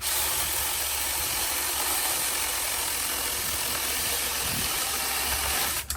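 Taranzy 6-inch cordless mini chainsaw running at a steady full speed, its motor and chain giving an even whir, which cuts off suddenly near the end.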